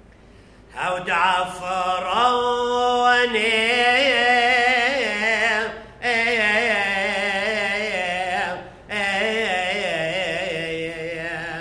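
A man's solo voice chanting a liturgical hymn unaccompanied, in three long phrases with wavering, ornamented pitch, broken by short breaths.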